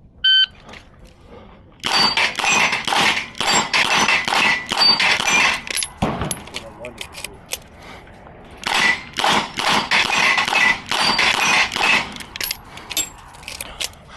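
Shot-timer start beep, then rapid fire from a Smith & Wesson 929 9mm competition revolver: two fast strings of shots about two and a half seconds apart, with a few single shots after the second string.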